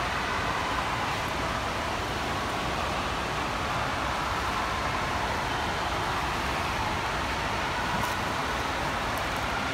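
Steady, even background noise of an indoor swimming pool hall, with a faint wavering hum and no distinct event.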